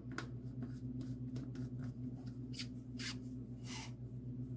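Blade lid being twisted and screwed onto a personal blender cup packed with cucumber, a string of short scratchy clicks and scrapes, over a steady low hum.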